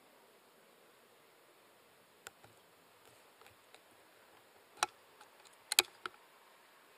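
Faint steady hiss with scattered sharp clicks and taps: a single click a little after two seconds, a few soft ticks, then a louder click and a loud cluster of two or three clicks near the end.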